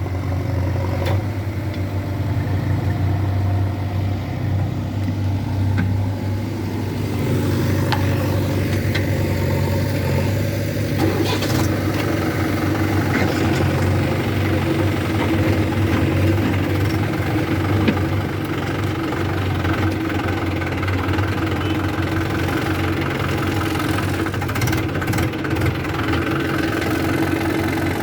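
Diesel engines of a JCB 3DX backhoe loader and tractors running steadily, with a few sharp knocks.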